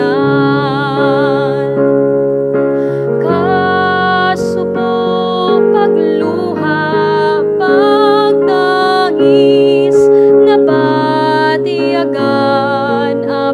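A slow ballad: a woman singing in Hiligaynon with vibrato over a keyboard accompaniment of held chords.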